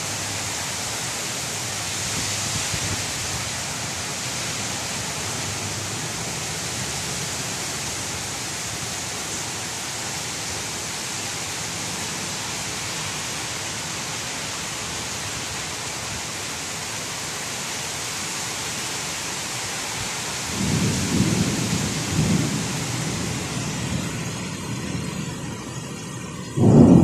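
Heavy monsoon rain pouring steadily. A low rumble of thunder rises about two-thirds of the way in and fades. Another loud low rumble starts suddenly just before the end.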